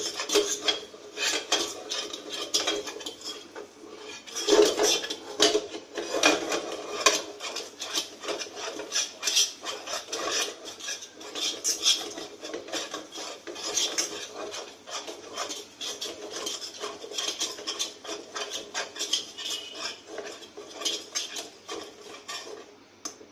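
A utensil stirring and scraping thick reduced milk around a kadai. Quick, irregular scrapes and knocks against the pan go on without a break and ease off near the end.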